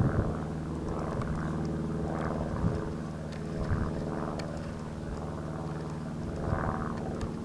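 A steady low mechanical hum of several even tones, with soft wind gusts on the microphone now and then.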